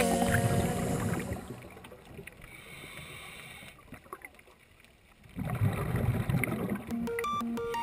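Muffled underwater water noise: a low rushing, gurgling rumble in two spells, at the start and again a little past the middle, with a much quieter lull between. Music comes back in near the end.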